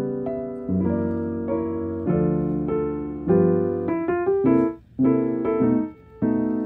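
Background piano music: a slow run of single notes and chords, each ringing out and fading.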